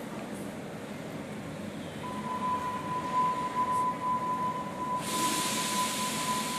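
Hamburg U-Bahn train standing at an underground platform with a low rumble. A steady high tone starts about two seconds in and holds, and a loud hiss joins about five seconds in.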